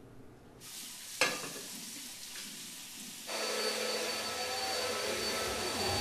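Corded vacuum cleaner switched on a little past three seconds in, its motor running steadily with a high whine. Before that there is a steady hiss, with a sharp click just over a second in.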